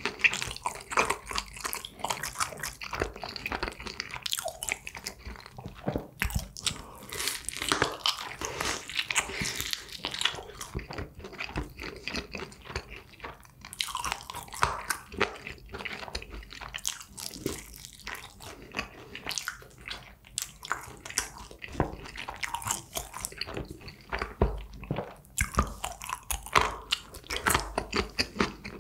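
Crisp fried chicken being bitten and chewed: repeated sharp crunches of the fried coating mixed with wet chewing, in an irregular rhythm.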